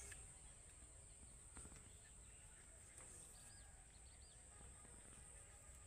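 Near silence: faint background hiss, with a few faint high bird chirps between about three and four and a half seconds in.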